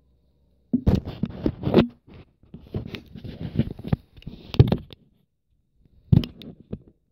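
Handling noise from a phone camera being picked up and moved: irregular rustling, scraping and knocking against the hand or clothing, in several short clusters.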